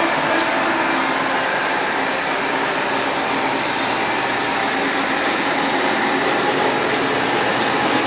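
Toolmex TUR603A manual lathe running, a steady, even machine noise with a faint hum.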